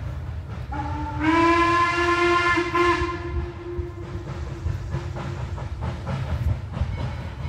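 Steam locomotive whistle blowing one long blast about a second in, stepping up slightly in pitch as it opens fully, then fading out over a few seconds. A low rumble runs underneath.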